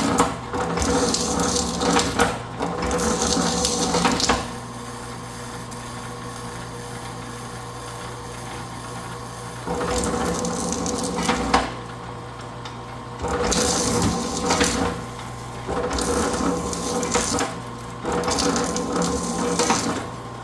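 Vevor four-roller electric wire stripper running with a steady motor hum. Every few seconds there is a louder stretch of rattling and scraping as lengths of copper wire are fed through the rollers and blade. The machine stops near the end.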